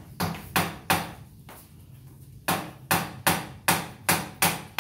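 Hammer driving nails into the wooden form boards of a sink counter that will be poured in concrete. Three blows, a pause of about a second and a half, then steady hammering at about three blows a second.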